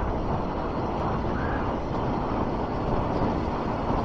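Honda Fireblade motorcycle's inline-four engine running steadily under way, mixed with a constant rush of wind and road noise.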